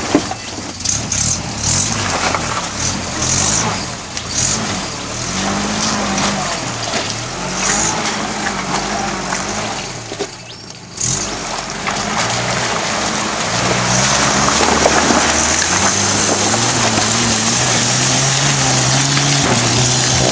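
Toyota Hilux four-wheel-drive pickup's engine revving under load as it crawls over river rocks, with stones clicking and crunching under the tyres. After a short break about halfway, the engine pulls harder and louder, climbing a loose, dusty slope with the wheels spinning.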